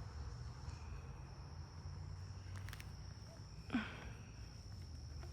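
Faint outdoor ambience: a steady high insect drone over a low rumble, with one short falling call about four seconds in.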